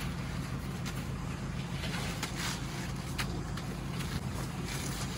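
A vehicle engine idling steadily, with a few short scuffs and knocks from the elephant calf's metal transport crate.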